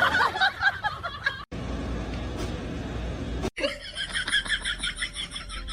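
Laughter in short pulses, in clips cut together. The stretch in the middle is steady noise.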